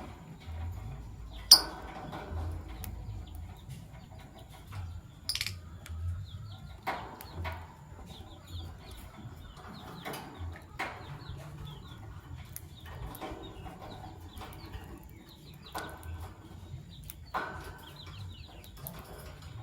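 Fischer's lovebirds chirping, with short rustling bursts every second or two and scattered sharp clicks, the loudest a click about one and a half seconds in.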